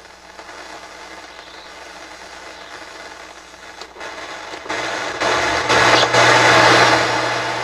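FM radio static from an NAD 712 stereo receiver tuned with no antenna, a scratchy hiss played through its speakers. It gets much louder about five seconds in, with a low hum underneath.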